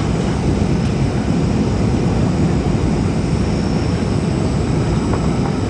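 Steady cabin noise inside a Boeing 737-800 on its approach: its CFM56 jet engines and the airflow over the fuselage make a loud, even low rumble.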